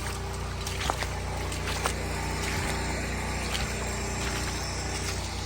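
Generator engine running steadily with an even hum, with a few faint clicks over it.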